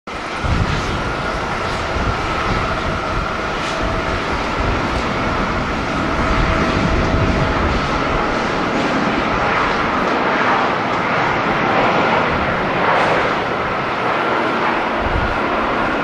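Japan Airlines Airbus A350 jet airliner at takeoff power during its takeoff roll and lift-off: a steady jet rush with a high whine. Strong wind buffets the microphone in irregular low rumbles.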